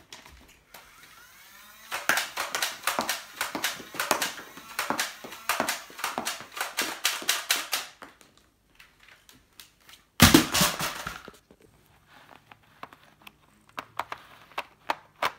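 A rapid run of sharp clicks and clatters, about four a second, for some six seconds, from Nerf darts and cardboard toilet-roll tubes; one loud thump about ten seconds in; then a few faint plastic clicks from handling a Nerf blaster.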